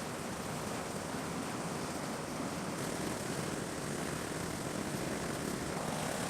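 Steady rushing roar of storm wind and heavy seas, an even noise with no distinct tones or impacts.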